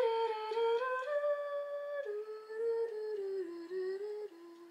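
A woman humming a slow tune: a few held notes that step mostly downward in pitch, then stop.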